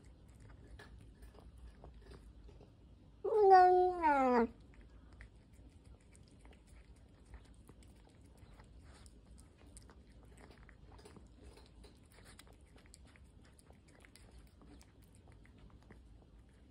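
A domestic cat chewing wet cat food, with faint wet clicks and smacks throughout. About three seconds in it gives one loud, drawn-out meow lasting over a second, in two parts, falling in pitch at the end.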